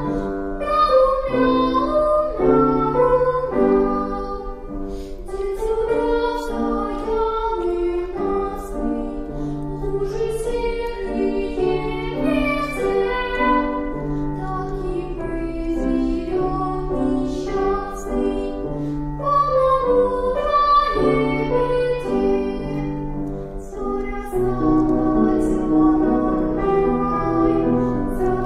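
A young girl singing a children's song solo, holding notes in a clear melody, over an instrumental accompaniment with a steady repeating bass line.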